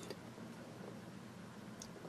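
Quiet room tone with faint handling of a cardboard box held in the hand, and one light tick near the end.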